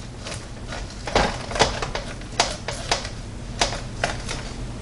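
Knife cutting a rib off a rack of smoked baby back ribs, with about six sharp knocks of the blade as it cuts through.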